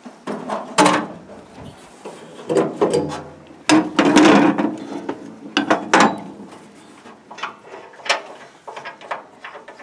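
Irregular clanks, knocks and rattles of metal parts being handled and moved.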